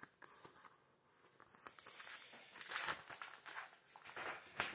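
A stack of Pokémon trading cards being leafed through by hand: light card clicks, then rustling that grows louder from about a second and a half in.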